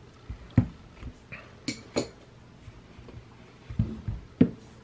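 A handful of short clicks and knocks of metal paintball marker parts being handled: the Empire Axe's bolt and bolt-guide assembly and the marker body being set down and picked up on a rubber work mat.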